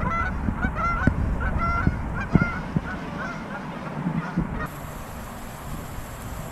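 Geese honking: a run of short honks, two or three a second, that stops about four and a half seconds in.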